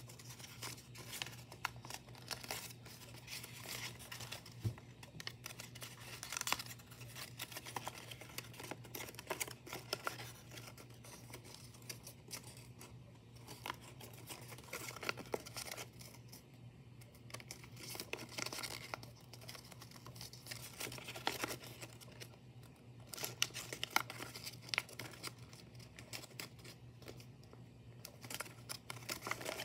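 Paper rustling and crackling as it is creased and folded by hand, in quick, irregular crinkles, over a faint steady low hum.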